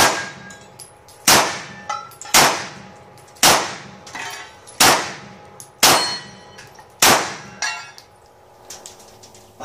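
Semi-automatic pistol fired in a string of seven shots, roughly one a second, each with a short echo; the firing stops about seven seconds in.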